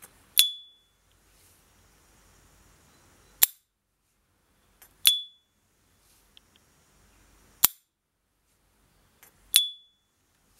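S. T. Dupont Ligne 2 gas lighter's lid flipping open three times, each with its signature high, clear 'ping' that rings briefly. Between the openings the lid is snapped shut twice with a sharp click that has no ring.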